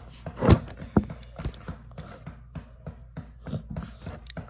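Phone microphone handling noise as a toddler grabs at the phone and jostles it: irregular knocks, taps and rubbing, with a heavy thump about half a second in and another sharp knock a second in.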